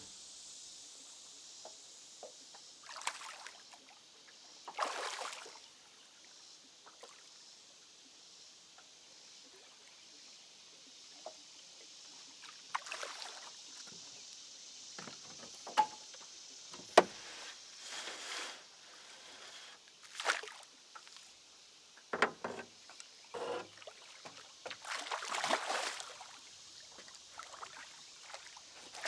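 Water splashing in short washes beside a fishing boat, with several sharp knocks on the hull, over a steady faint hiss.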